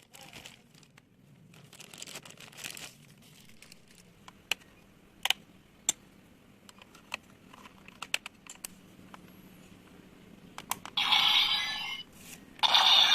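Plastic packaging rustling and a few sharp plastic clicks as the DX Neo Diend toy is handled, then two loud bursts of electronic sound from the toy's small built-in speaker near the end.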